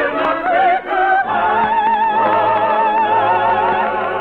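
Operetta singing with orchestra: a high voice sings a short phrase, then holds one long high note with wide vibrato over the sustained orchestra.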